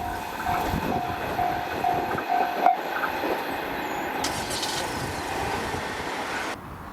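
A railway level-crossing warning bell rings in an even beat, about two strikes a second, over the noise of a train on the line. The bell stops about a third of the way in, and the train noise goes on until it drops off sharply near the end.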